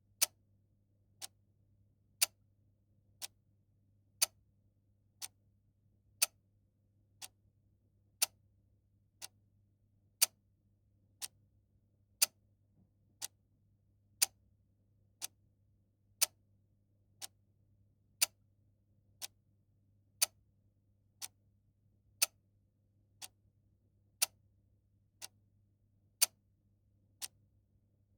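Clock ticking about once a second, a louder tick alternating with a softer tock, over a faint low hum.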